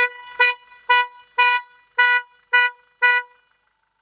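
Toyota Kijang Innova Reborn's car horn beeping seven times in quick succession, about two short beeps a second, each a single thin tone that sounds like a baby goat. Only one of the pair of horns is sounding, because the other horn's connector has come loose.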